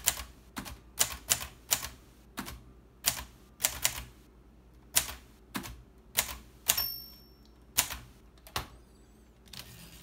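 1955 Groma Kolibri manual portable typewriter typed slowly in capitals: sharp, uneven key and typebar strikes, roughly one or two a second. Its bell rings once, briefly, about two-thirds of the way through.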